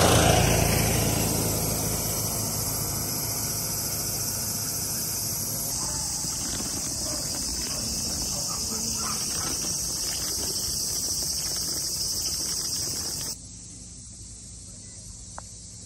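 Insects calling in a steady, high-pitched chorus, which cuts off suddenly near the end. A low rumble fades away in the first couple of seconds.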